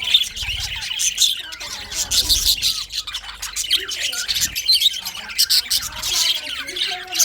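A flock of budgerigars chirping and warbling, with many quick overlapping chirps and occasional squawks.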